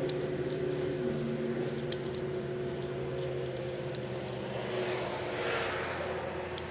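Light metallic clicks and taps of an aluminium wastegate housing and its parts being handled, over a steady machine hum made of several even tones.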